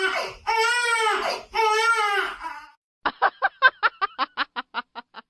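Baby crying in long, wavering wails, each about a second. About three seconds in the crying stops and a quick run of short staccato pulses follows, like rapid laughter, fading away.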